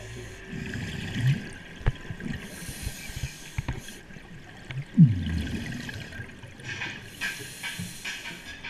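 Muffled water movement picked up by an underwater camera: uneven low rumbling and swishing with a few sharp knocks, and a loud falling whoosh about five seconds in.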